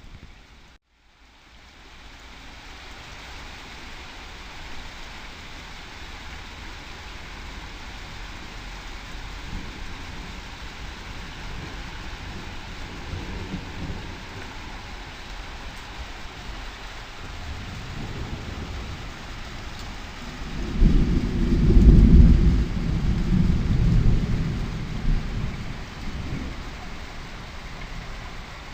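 Summer thunderstorm: steady rain falling, with low rolls of distant thunder. A long, loud roll of thunder comes about two-thirds of the way through and slowly fades.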